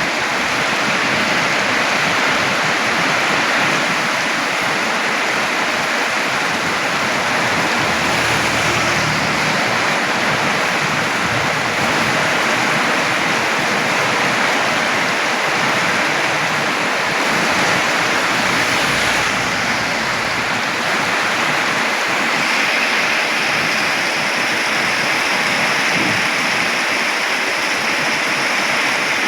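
Steady, loud hiss of heavy rain falling.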